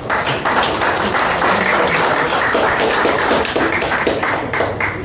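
Crowd applauding: a dense, steady spatter of hand claps that drops off at the very end.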